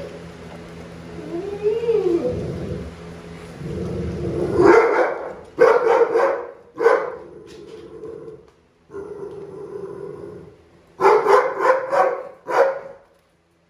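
Pit bulls in kennel crates giving drawn-out cries that rise and fall in pitch, then breaking into loud barking: a burst of barks about five seconds in and another about eleven seconds in.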